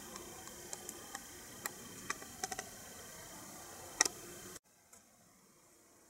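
Handling noise from a small die-cast toy bulldozer turned in the fingers: a scatter of light clicks and taps over a steady hiss, with one louder click about four seconds in. The hiss drops away abruptly shortly after.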